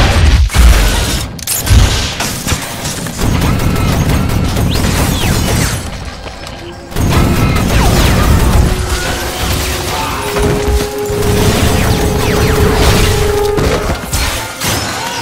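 Action-movie soundtrack: a loud explosion boom at the start, then crashes and bursts of gunfire over music. A second loud blast of action comes in about halfway through.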